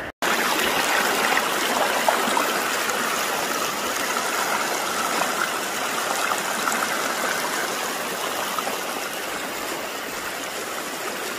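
A river running: a steady, even rush of flowing water that cuts in abruptly just after the start.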